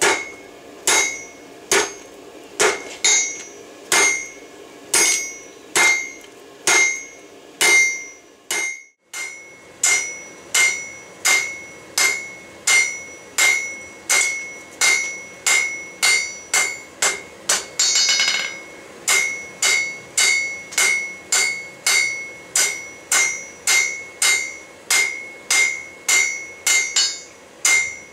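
Hand hammer forging red-hot railroad-spike steel on an anvil: a steady run of blows, about one and a half to two a second, each one ringing brightly. The blows break off briefly about nine seconds in, then go on a little faster.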